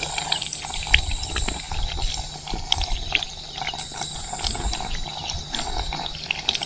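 Water running in a thin stream from a plastic tap on a water drum, splashing over a sprig of celery leaves being rinsed under it by hand.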